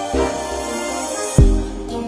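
Background music with steady keyboard-like notes; a hiss swells until a heavy bass hit about one and a half seconds in, followed by deep sustained bass.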